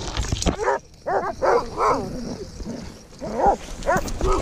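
Sled dogs whining and yipping: several short calls that rise and fall in pitch.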